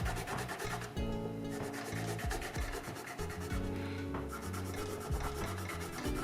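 Abrasive fret eraser rubbing back and forth over the guitar's frets, polishing them at the finest grit (1000), with background music carrying a bass line underneath.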